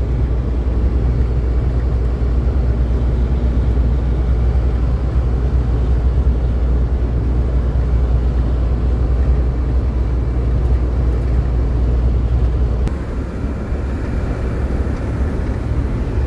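A moving road vehicle's steady driving noise: a deep engine and tyre rumble on the road. About thirteen seconds in, the deepest part of the rumble drops away and the sound gets a little quieter.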